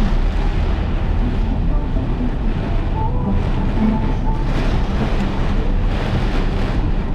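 Steady noise inside a moving car in heavy rain: low road and engine rumble under a constant hiss of rain and wind on the body.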